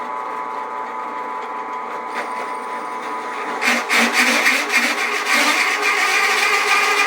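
Drill press motor running steadily with a constant hum, being tested after the nut on top was tightened. About three and a half seconds in, the bit starts cutting into the workpiece, adding a louder, rough, uneven cutting noise over the hum.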